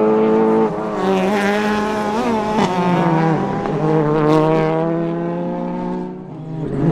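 Ford Fiesta rally car's engine at full revs through a corner. The engine note holds high, steps down a little under a second in, wavers up and down through the middle, then falls steadily as the car pulls away.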